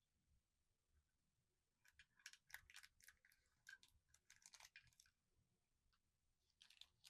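Faint crinkling and clicking of blind-box packaging being handled, with a run of quick crackles from about two to five seconds in and another short burst near the end.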